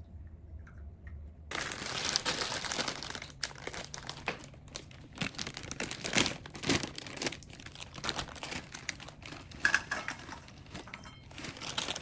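Packaging crinkling and crumpling as it is handled, a dense crackling rustle that starts about a second and a half in, with sharper crackles now and then.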